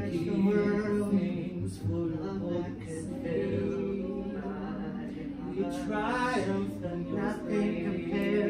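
Several voices singing spontaneous, unaccompanied praise (tehillah), their lines overlapping at different pitches, with one voice sliding up and back down about six seconds in.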